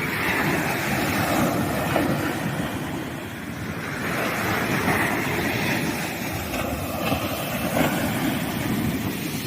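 Sea waves breaking and washing up on a sandy beach: a steady rushing surf that swells and eases as each wave comes in.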